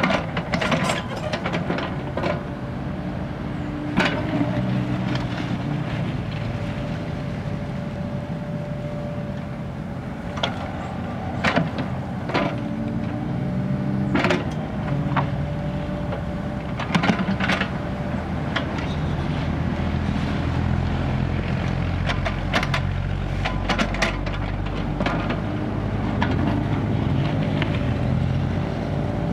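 Kubota mini excavator's diesel engine running steadily under load while digging, with repeated sharp clanks and knocks as the steel bucket strikes and scrapes through soil and rubble.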